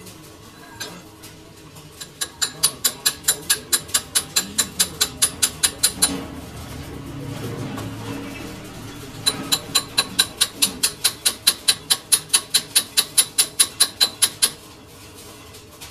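Rapid metal-on-metal strikes, about five a second, each with a short high ring. They come in two runs of several seconds, with a lower hum in the break between them.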